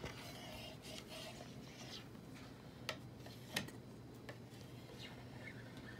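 Faint scraping of a clear plastic scraper along the edge of an alpine ski, taking off hardened wax, with two short sharp clicks about three seconds in.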